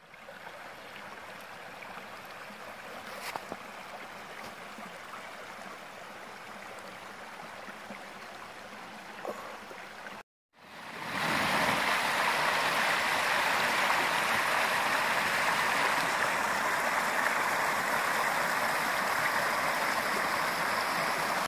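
Small forest brook running over stones and little cascades, a steady rush of water. It is quieter at first, then much louder after a cut about halfway through.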